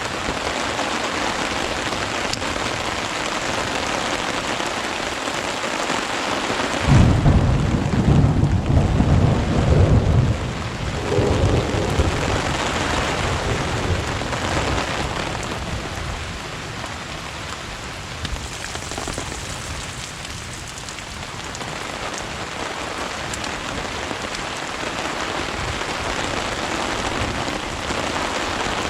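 Steady rain pouring down during a thunderstorm. About seven seconds in, a loud thunderclap breaks out and rumbles for about three seconds before the rain takes over again.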